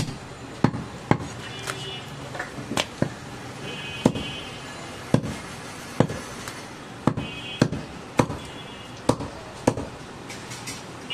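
Heavy curved butcher's chopper striking goat meat and bone against a wooden log chopping block: a dozen or so sharp chops, irregularly spaced about half a second to a second apart.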